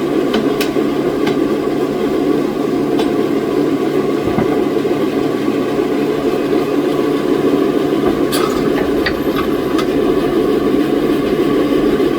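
Old sawmill machinery running steadily, with scattered sharp knocks, a cluster of them about eight to ten seconds in.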